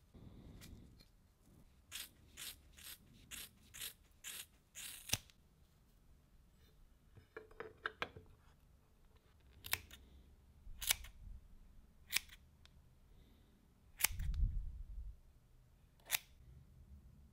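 A run of about seven sharp clicks in quick succession, then single sharp clicks every second or so, with a low thud about two-thirds of the way through.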